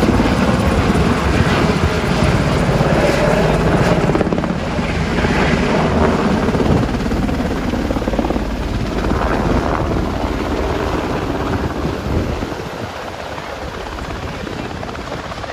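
A naval Seahawk helicopter flying low overhead, its rotor chopping steadily in a dense pulsing beat. It grows fainter about twelve seconds in as the helicopter moves away.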